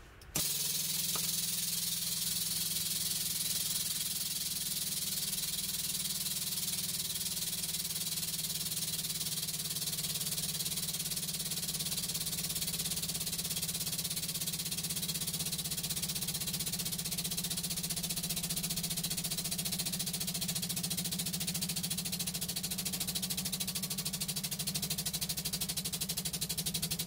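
Hydraulic press pump motor running steadily while the ram presses slowly down: a steady hum with a high hiss that starts abruptly just after the beginning.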